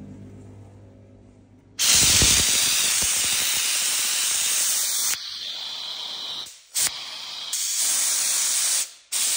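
Bieffe Farinelli steam cleaner's gun blowing steam: a loud hiss that starts suddenly about two seconds in, after a low hum, and runs on with a few short breaks near the end.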